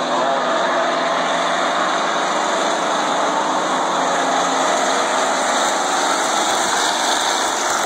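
A field of pure stock race cars running on a short oval track, their engines blending into one steady drone.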